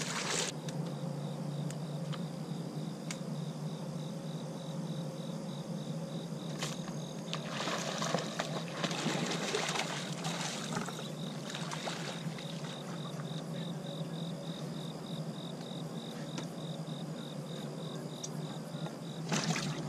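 A hooked bass splashing and thrashing at the water's surface for a few seconds, starting about seven and a half seconds in. Under it, insects chirp in an even pulsing rhythm over a steady low hum.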